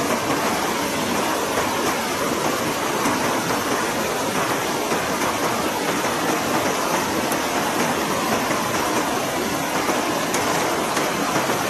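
River water rushing over rocks in a shallow rapid: a steady, unbroken rush.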